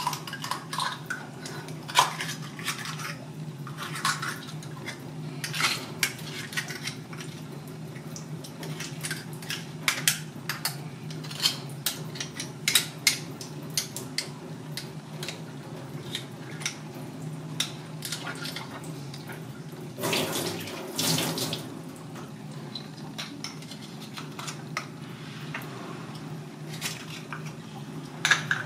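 Tap water running into a stainless-steel sink while a knife clicks and scrapes against a surf clam's shell as it is shucked. A steady low hum sits underneath, and a louder gush of water comes about twenty seconds in.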